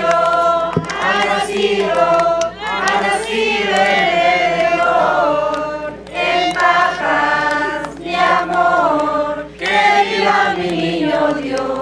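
A group of voices, women's among them, singing a shepherds' Christmas carol together in long held phrases, with short breaks about six and nine and a half seconds in.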